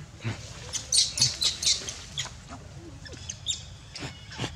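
Short high-pitched animal chirps and squeaks in quick succession, thickest about one to two seconds in, with a few sharp clicks.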